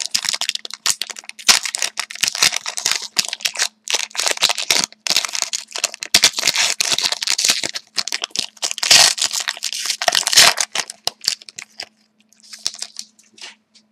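A trading card pack wrapper being torn open and handled, crinkling and crackling irregularly, then going quiet about twelve seconds in. A faint steady hum sits underneath.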